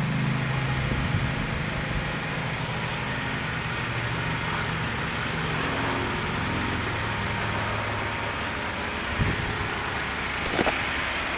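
An engine idling steadily with a low, even hum. Two short knocks come near the end.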